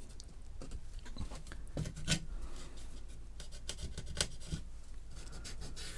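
Scratchy rubbing at the plastic case of a Commodore Plus/4 being cleaned, with scattered light clicks and taps in an irregular rhythm.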